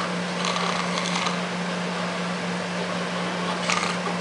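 Steady low electrical hum over an even hiss, with faint brief sounds about half a second in and again near the end.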